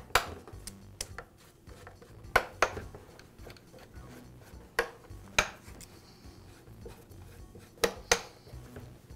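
Sharp clicks and knocks, several of them in close pairs, from a Husqvarna leaf blower's plastic housing and hand tools being handled on a metal-topped workbench as the outer impeller housing is taken off.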